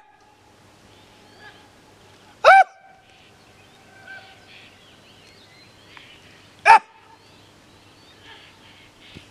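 A dog barking: two single short barks, about two and a half seconds in and again near seven seconds.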